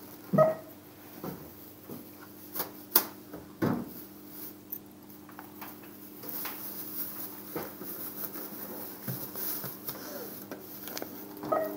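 Supermarket checkout sounds: a short pitched beep about half a second in and again near the end, typical of a barcode scanner, with scattered clicks and knocks of goods handled on the counter over a steady electrical hum.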